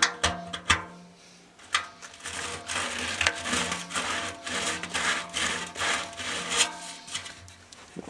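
Deburring the freshly step-drilled hole in an aluminum brew kettle by hand: a few sharp knocks, then quick, repeated scraping and rubbing strokes at the hole's edge to clear the burrs left by drilling.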